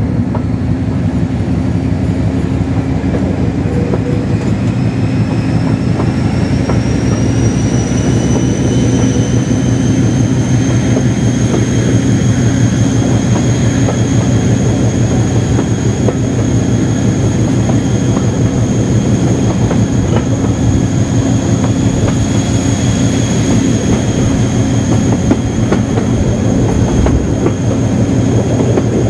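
Class 56 diesel locomotive's Ruston Paxman 16-cylinder engine working hard under power, a deep throbbing drone with a high-pitched whine that climbs in pitch over the first several seconds as the train accelerates, then holds steady.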